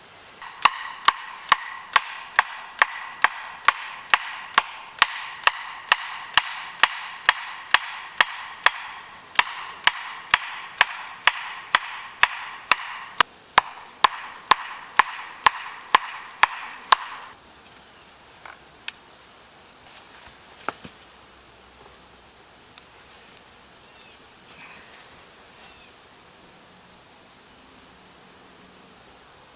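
Sharp wooden knocks at a very even pace of about two a second, over a steady ringing tone; they stop about 17 seconds in. Faint scattered ticks and a few short, high chirps follow.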